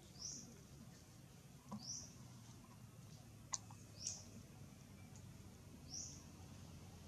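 Faint bird chirps: short, high, rising calls repeated about every two seconds, with one sharp click about three and a half seconds in.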